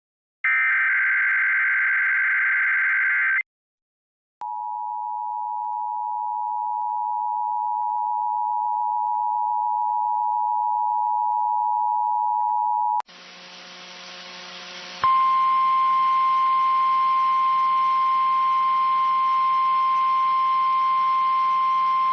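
Emergency Alert System test signals: the last screeching SAME digital header burst ends about three seconds in. After a second of silence comes the two-tone EAS attention signal, a steady dual-pitch tone lasting about eight seconds. Then a couple of seconds of weather-radio hiss and hum give way, about fifteen seconds in, to the NOAA Weather Radio warning alarm, a single steady tone.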